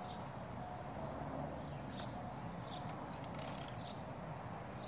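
Hand socket ratchet clicking in short strokes as it tightens a hex nut onto a caster's threaded stem. A steady background hiss runs underneath, with faint bird chirps.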